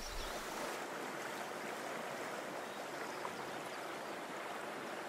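Steady rush of moving water, an even hiss with no separate splashes or strokes.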